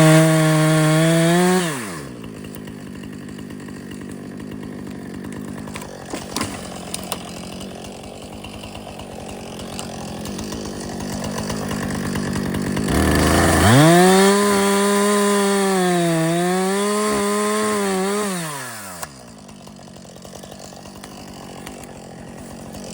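Chainsaw engine revved high for a couple of seconds, then idling, then run at full throttle again for about five seconds, its pitch sagging and recovering as it cuts through wood, before dropping back to idle.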